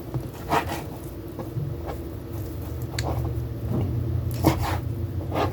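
Knife cutting raw chicken breast into strips on a cutting board: a few soft, squishy cuts and knocks. A low steady hum runs underneath, stronger in the second half.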